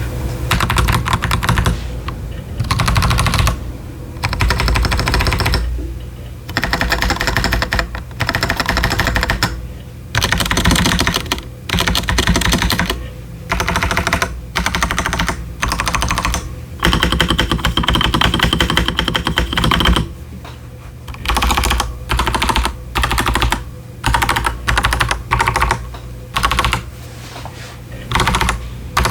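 Typing on an unmodded Akko 5075s mechanical keyboard with stock Akko Jelly Purple tactile switches and doubleshot PBT ASA-profile keycaps. It comes in quick bursts of keystrokes, each a second or two long, with brief pauses between them.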